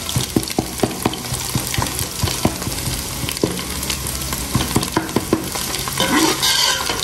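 Sliced onions and ginger-garlic paste sizzling in hot oil in an aluminium pot while being browned, with a metal slotted spoon scraping and clicking against the pot as they are stirred.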